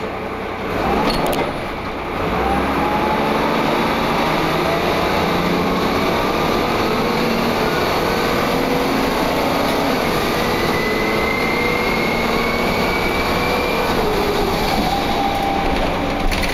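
Inside a Wright Cadet single-deck bus under way: a steady drone of engine and road noise with several whining tones that climb slowly in pitch as it pulls, a higher whine rising more clearly in the second half. These are the kind of strange whining noises this bus is known for making, especially on hills.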